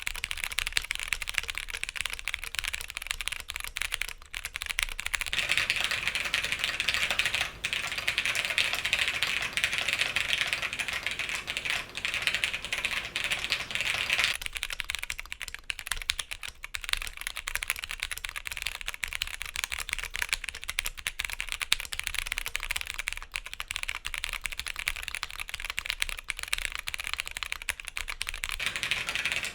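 Continuous fast typing on an OTD 356CL custom mechanical keyboard with vintage Cherry MX Clear tactile switches, a polycarbonate half plate, Cherry stabilizers and double-shot keycaps: a dense, unbroken stream of key clacks.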